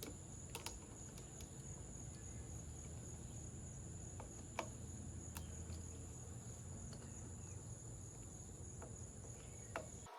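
Steady high-pitched chirring of insects over a low hum, with a few faint clicks from hand-tool work on the switch-box screws.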